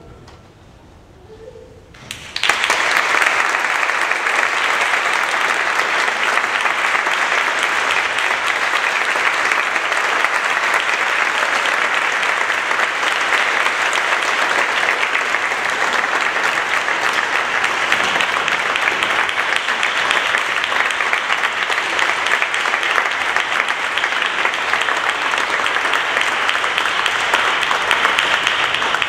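Audience applauding: the clapping breaks out about two seconds in, after a short hush, and runs steadily until it stops near the end.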